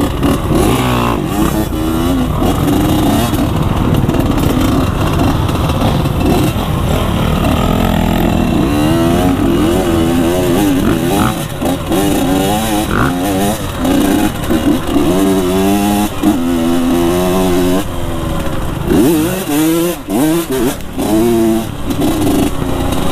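Dirt bike engine running under load while being ridden, its pitch rising and falling again and again as the throttle opens and closes.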